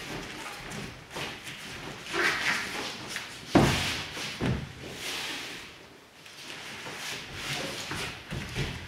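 A body thumping down onto foam mats as an aikido partner is taken down and pinned, the loudest hit about three and a half seconds in with a second thump a second later, amid rustling of the cotton practice uniforms and knees and feet shuffling on the mat.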